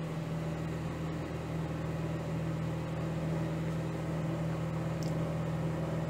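Samsung ME88SUW microwave oven running in its fast odour-removal mode: a steady low hum with a light hiss over it. The reviewer counts this running noise as one of the oven's drawbacks.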